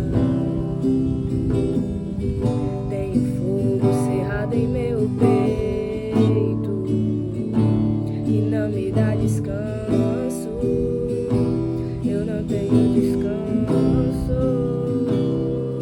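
Instrumental music: strummed acoustic guitar over a bass line, with a wavering melody line above, no words.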